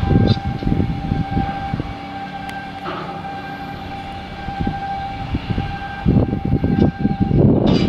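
Shipyard machinery with a steady high whine, under irregular low rumbling and knocking that swells near the start and again toward the end.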